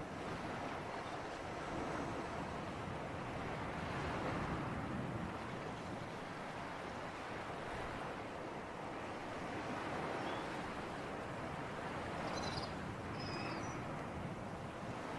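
Sea surf washing ashore in a sea breeze: a steady rush of water and wind that slowly swells and eases every few seconds. A couple of faint high chirps come near the end.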